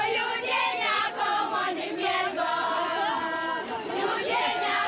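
A group of people singing and chanting together, many voices overlapping, with some notes held.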